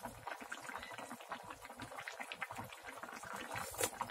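Thick, spicy potato-and-pork-belly stew (jjageuli) simmering in an open pan on a gas burner, its bubbles popping in a quick, irregular crackle. One louder pop comes near the end.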